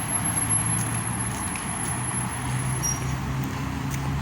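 Steady outdoor road traffic noise, with the low hum of a vehicle engine.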